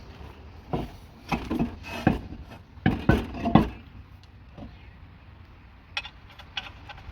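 Knocks and metallic clinks of a tire on its steel wheel being handled and fitted back onto the car: a cluster of strikes over about three seconds, then a few lighter clicks near the end.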